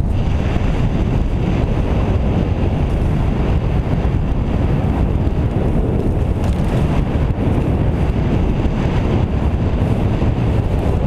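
Loud, steady wind buffeting on the microphone of a pole-held action camera as a skier runs fast down a powder slope, a low rumble with the hiss of the skis through the snow mixed in.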